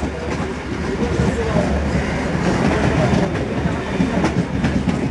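Kolkata suburban EMU (electric multiple unit) train running at speed, heard from inside the moving coach: a steady rumble with the wheels knocking over rail joints a few times.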